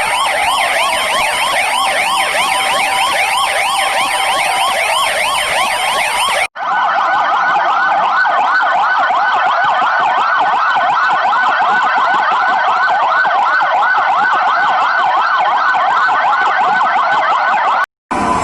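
Several police car sirens sound together in a fast yelp, their rising and falling pitch sweeps overlapping out of step. They are sounded in unison to mark the moment of the Independence Proclamation. The sound breaks off for an instant about six and a half seconds in and again near the end, then carries straight on.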